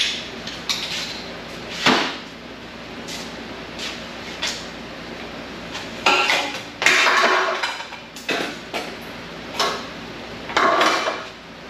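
Metal hand tools clanking and rattling as they are picked up, sorted and set down: a series of sharp clanks, with a longer rattle of about two seconds some six seconds in.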